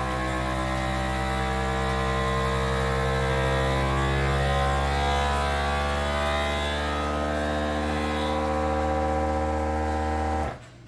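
Countertop vacuum sealer's pump motor running with a steady hum as it draws the air out of a plastic bag, cutting off suddenly near the end.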